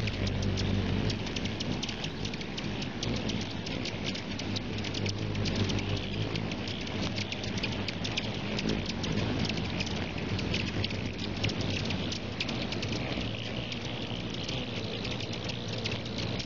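Many hummingbirds swarming a feeder: the steady hum of their wings, with a dense, continuous patter of tiny clicks and chips over it.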